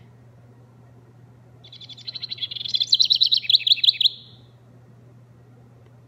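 Recorded house wren song played through the small speaker of a bird-song sound book. About a second and a half in comes a rapid run of high chirps that grows louder and ends in quick falling notes just after four seconds.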